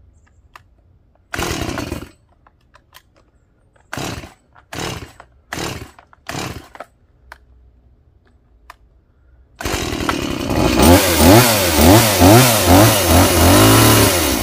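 A STIHL MS180 two-stroke chainsaw fitted with a new aftermarket replacement engine, being pull-started: five quick pulls on the starter cord, then the engine catches about nine and a half seconds in. It runs and is revved up and down about twice a second, then held high. This is its first start after the engine swap.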